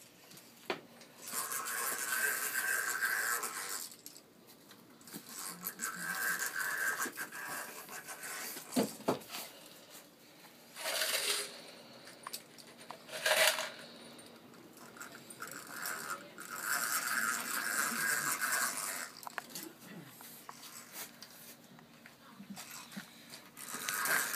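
Clamps and wood being worked as a plank is fastened to a wooden boat hull: stretches of rasping and scraping that come and go several times, with a few sharp knocks and clinks of metal and wood.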